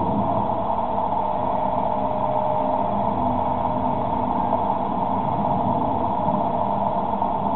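Hiss of an Icom IC-735 shortwave receiver on the 10-metre band, squeezed through a narrow INRAD CW filter into a band around the pitch of Morse tone. A weak, steady beacon tone comes up faintly about a second in and fades under the noise after about two seconds.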